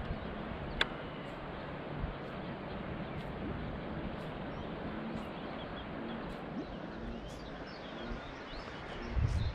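Quiet riverside ambience: a steady low hiss with faint bird chirps through the second half. A sharp click comes about a second in and a low thump near the end.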